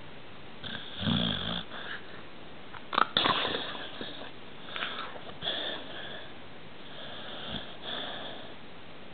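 A pet's snore-like snuffling: a string of irregular sniffs and snorts, the loudest a sharp pair about three seconds in.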